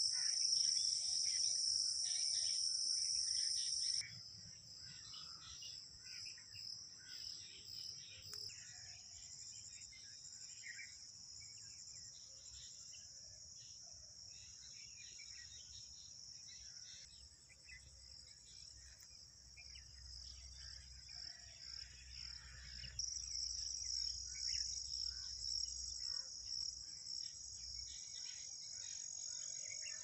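Insects trilling in a steady, high-pitched chorus. It is loudest for the first four seconds, drops suddenly, then grows louder again about two-thirds of the way through.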